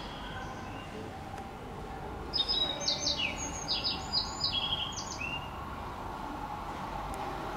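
A small songbird gives a quick run of short high chirps lasting about three seconds, starting a couple of seconds in. Under it is a faint steady hum from an electric commuter train approaching in the distance.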